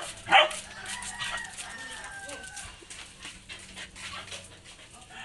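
A dog barks twice in quick succession, then a rooster crows, much quieter than the barks, in one long call lasting about a second and a half.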